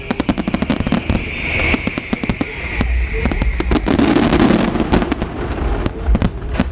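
Aerial fireworks display: rapid crackling reports and low booming shell bursts, with a high whistle that falls slightly in pitch over the first three seconds.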